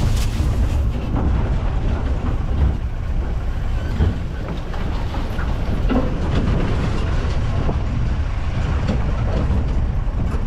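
Mahindra Bolero four-wheel-drive riding over a rough, rocky off-road track, heard from inside: a steady low engine and road rumble with occasional knocks and rattles as it jolts.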